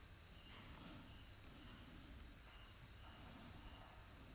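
Faint background crickets chirring steadily, with a softer chirp repeating about twice a second.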